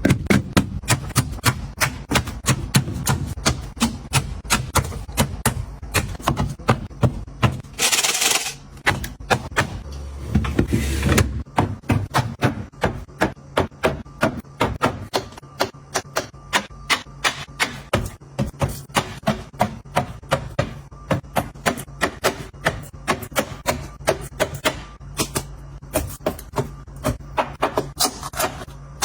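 Rapid run of sharp knocks and taps on a hard kitchen surface, about three a second with brief pauses. A short hiss comes about eight seconds in.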